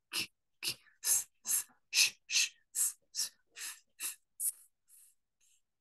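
A man sounding out a run of voiceless consonants one after another: short unvoiced puffs and hisses like p, k, s, sh and ch, about two or three a second. They grow fainter near the end.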